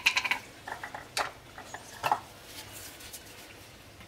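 Light clicks and rattles of a plastic container and plastic spoon being handled while corn flour is scooped out: a quick cluster at the start, a few more within the first second, and another about two seconds in.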